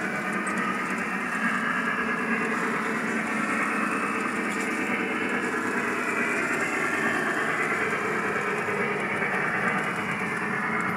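O gauge model trains running on the layout's track, giving a steady rolling rumble and whir with no clear beat.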